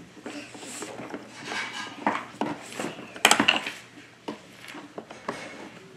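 Plastic toy car parts and toy tools clicking and clattering as the pieces are handled and fitted together, with one sharper click a little past the middle.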